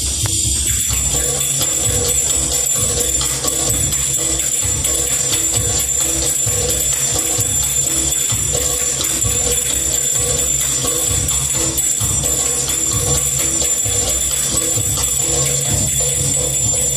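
Belly dance music with a steady drum beat and jingling, tambourine-like percussion.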